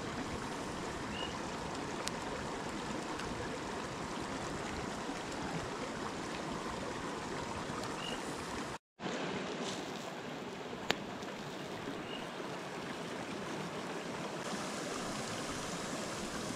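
River water flowing, a steady rushing that cuts out for a moment about nine seconds in, with a couple of faint clicks.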